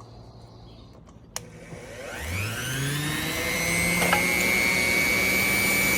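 A small electric grinder is switched on with a click and spins up, its whine rising for a second or so, then runs steadily at full speed with a high whine.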